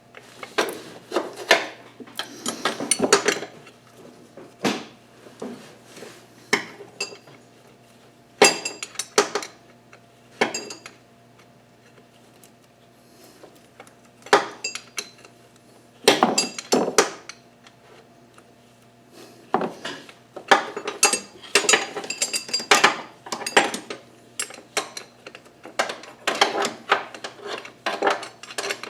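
Hand tools and metal parts clinking and rattling against each other in irregular clusters, with short quiet pauses between.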